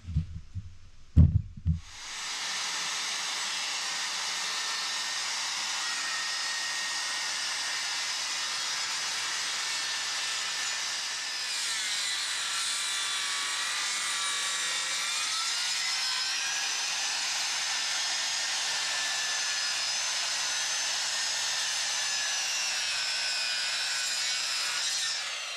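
A couple of knocks, then a chainsaw running steadily under load as it rips lengthwise through a log in a chainsaw mill, its pitch shifting a little partway through; it stops near the end.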